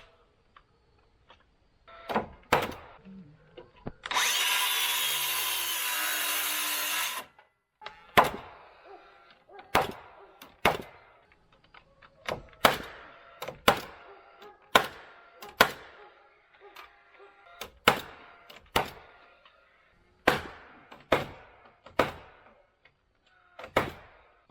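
Hammer blows on wood, single strikes spaced about a second apart, as boards are nailed up. About four seconds in, a power saw cuts through wood for about three seconds.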